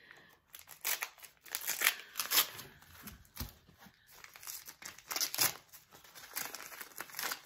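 Paper crinkling and rustling in irregular bursts as hands dig through a gift box packed with wrapping papers.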